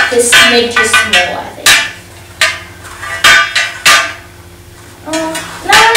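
Metal pinball machine legs clanking as they are handled and knocked together: four sharp knocks, each with a short ring, about a second apart in the middle.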